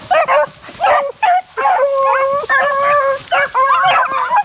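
A pack of beagles bawling and yelping all at once, many overlapping drawn-out cries with no break. The hounds are crowded around a downed cottontail rabbit.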